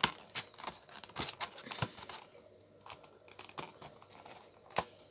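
Thin clear plastic tub crinkling and clicking as it is handled, a run of sharp crackles that thins out after about two seconds.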